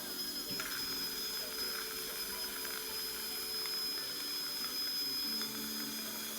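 Dental equipment running: a steady high-pitched whine over a hiss.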